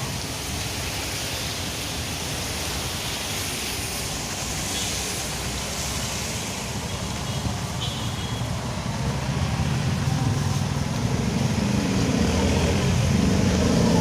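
Heavy rain falling in strong wind: a steady rushing noise that grows louder over the last few seconds, with a low rumble rising beneath it.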